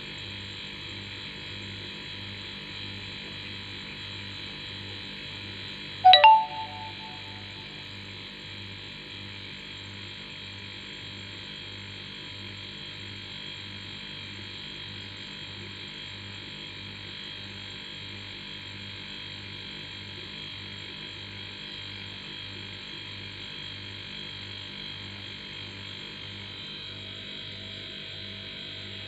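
Homemade air compressor built from a split air-conditioner compressor, running with a steady hum and a faint regular pulse. About six seconds in, a single sharp metallic ding rings out briefly, the loudest sound present.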